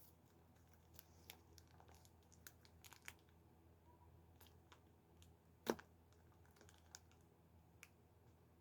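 Faint scattered clicks and crinkles of plastic packaging being handled, with one sharper click about two-thirds of the way through.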